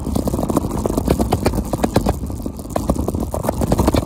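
Scooter rolling over rough, cracked pavement: a steady low rumble with a dense rattle of many small clicks.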